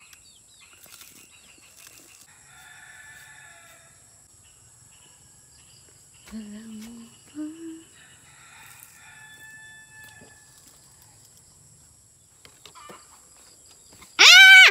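Faint background sounds, then a rooster crows loudly once near the end.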